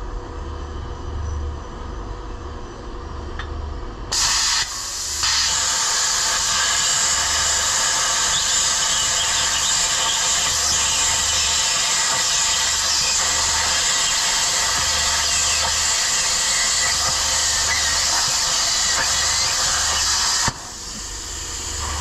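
Handheld plasma cutter cutting a circle out of steel plate: a short burst about four seconds in, then a loud, steady hiss for about fifteen seconds that drops to a quieter hiss near the end. A low hum pulses underneath about once a second.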